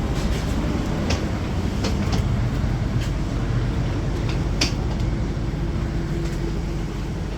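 Train running along with a steady low rumble, broken by a few sharp clicks or knocks, the sharpest a little past halfway.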